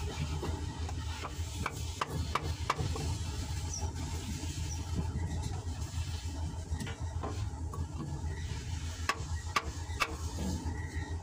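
An engine running steadily in the background, with a few sharp metal clinks and knocks from tools and a wooden block being handled on a diesel engine's opened top end: a cluster about two seconds in and another near the end.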